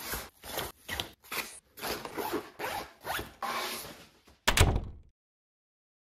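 Backpack zipper pulled in a series of short zipping strokes, then one loud thump about four and a half seconds in.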